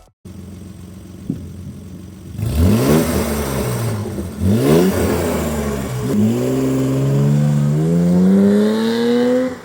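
1987 BMW E30 325i's 2.5-litre straight-six idling, then revved: two quick blips that rise and fall, then a longer steady climb in revs that cuts off just before the end.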